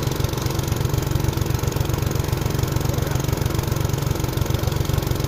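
Eicher tractor's diesel engine running steadily at a constant speed with a fast, even, low chugging, driving the pump that draws water out of the pond through a hose.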